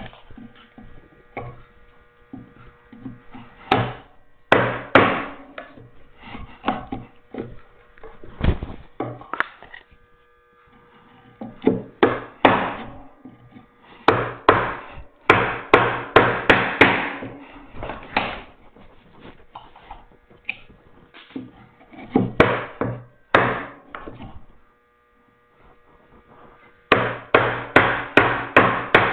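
Mallet striking a mortise chisel, chopping a mortise by hand in oak. The blows come in runs of several quick, sharp strikes with short pauses between them.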